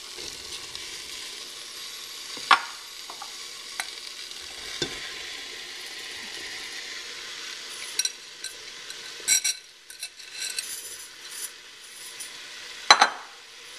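Hot masala sizzling steadily in an aluminium pressure cooker as green peas and then sliced mushrooms are tipped in, with a few sharp clinks and knocks; the loudest comes near the end.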